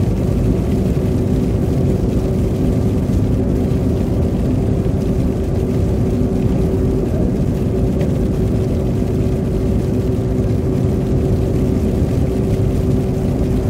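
A car driving, heard from inside the cabin: steady engine and tyre noise with a constant low hum.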